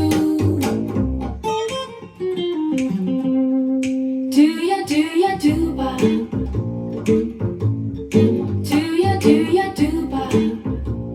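A guitar-led pop-rock song played back through a WiiM Vibelink amplifier, with a steady drum beat. The beat drops out for a couple of seconds, leaving a held note, and comes back in about four seconds in.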